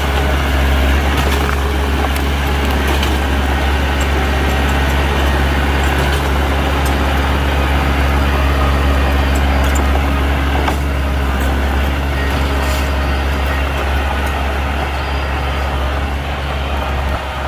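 Heavy diesel engine of earthmoving machinery running steadily, a loud low drone with a few light clicks and knocks over it.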